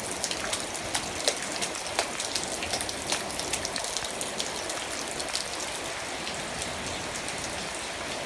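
Heavy tropical rain falling steadily, a constant hiss with many sharp close drops striking in the first few seconds, fewer later on.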